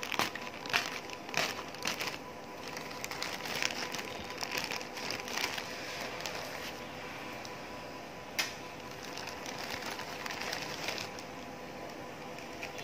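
Plastic courier mailer crinkling and rustling as it is handled and opened, with irregular sharp crackles, the sharpest about eight seconds in. A faint steady hum underneath.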